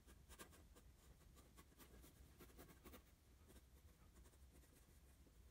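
Yellow wooden graphite pencil scratching faintly on paper in short, light sketching strokes, busiest in the first three seconds.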